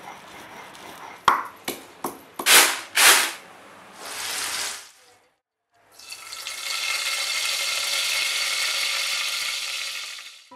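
Kitchen work sounds: a run of sharp knocks and clicks with two short loud bursts of noise, then after a moment's silence a steady hiss lasting about four seconds.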